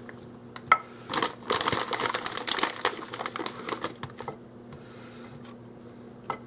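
Frozen meatballs tumbling from a plastic bag into a glass casserole dish and being pushed around by hand: hard little knocks of frozen meatballs on the dish and on each other, mixed with the crinkle of the plastic bag. One sharp knock comes about three quarters of a second in, a dense clatter and crinkle follows for about three seconds, then it goes quieter.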